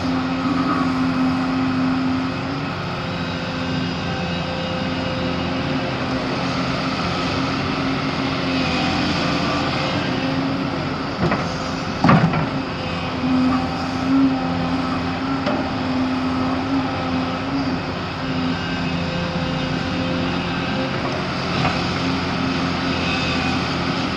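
Volvo excavator's diesel engine running steadily under work, with a couple of sharp knocks about halfway through.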